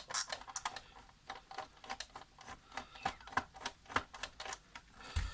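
Rapid, irregular small clicks and ticks of a T10 security-Torx screwdriver working screws out of a coffee machine's plastic base, with a dull knock about five seconds in.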